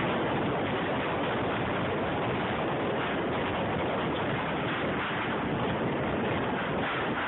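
Strong wind from a nearby tornado rushing over a phone's microphone: a steady, unbroken rushing noise.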